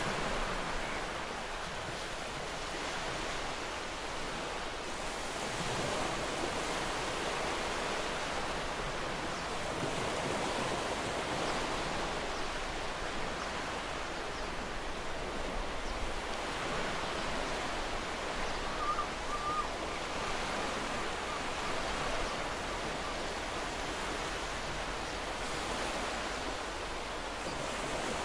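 Sea surf and wind making a steady rushing noise, with a faint short wavering tone about two-thirds of the way through.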